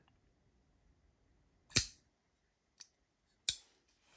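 NRiggi Jersey prototype flipper folding knife being flicked on its detent: two sharp metallic snaps about a second and three-quarters apart, with a faint tick between them, as the blade fires out and locks up.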